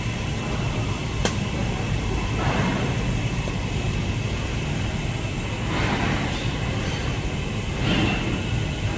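Arc welding on a tube joint: a steady hiss over a low rumble, with a few brief swells.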